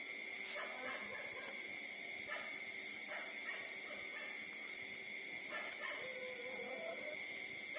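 Newborn puppies, about six days old, squeaking and whimpering softly while they nurse: several short, wavering squeaks, with a longer whimper near the end. A steady high-pitched whine runs underneath.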